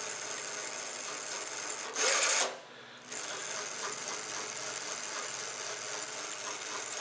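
A 24-volt 250-watt brushed electric motor running a chain drive under remote-control throttle, with its speed controller's throttle limited to 40%. It runs steadily, surges louder around two seconds in, cuts out for about half a second, then runs steadily again.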